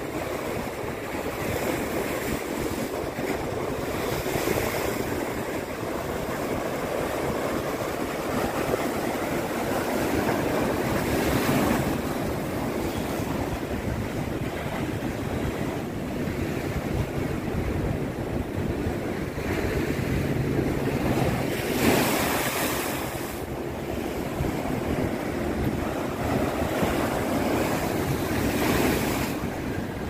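Rough sea surf breaking and washing over concrete breakwater blocks. It is a steady wash with several louder crashes of waves, the strongest about two-thirds of the way through. Wind buffets the microphone.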